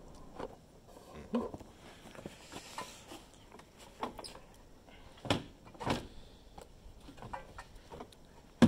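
Scattered light knocks, clunks and rattles of a snowmobile's stock exhaust pipe and muffler being handled and worked loose, with two louder knocks about five and six seconds in.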